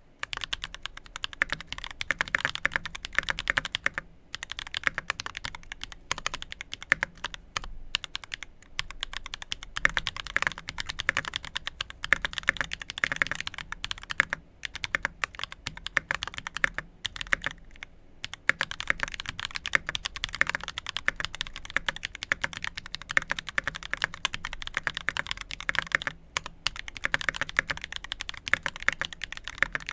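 Continuous typing on a Primus 75% mechanical keyboard with lubed YOK Holy Panda tactile switches, an aluminium plate and GMK cherry-profile keycaps: a dense stream of key clacks, broken by a few short pauses.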